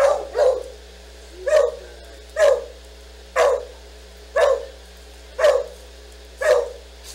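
A dog barking, eight barks at about one a second, the first two close together.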